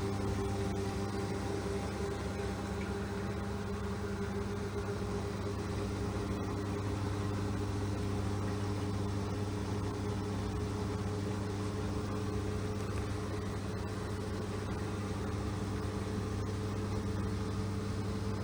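LG 6.5 kg washing machine running, with a steady motor hum of constant pitch over the whoosh of the drum.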